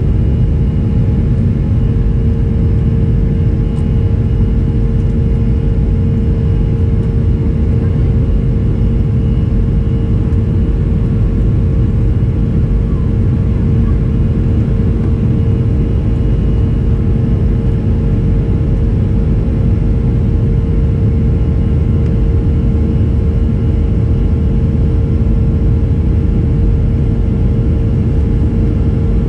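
Boeing 737-300's CFM56-3 turbofan engines running at climb power, heard inside the cabin over the wing. A steady loud drone of engine noise and airflow rush, with a constant humming tone on top.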